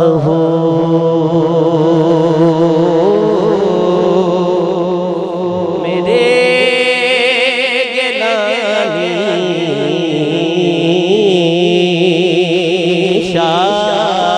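A man's voice singing a naat into a microphone, drawing out long held notes with wavering, ornamented turns in the melody, over a steady lower note held underneath.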